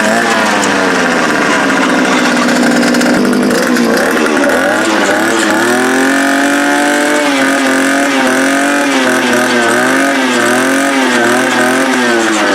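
Two-stroke engine of a gas post-hole auger running cold on a new carburetor and spark plug, its throttle worked up and down several times and dropping back toward low idle between rises.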